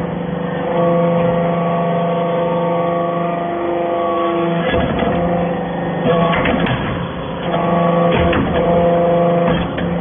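Hydraulic briquetting press compacting metal shavings: a steady machine hum with several held tones, broken by spells of clattering and knocking about five, six and a half and eight seconds in as the ram works the chips in the hopper.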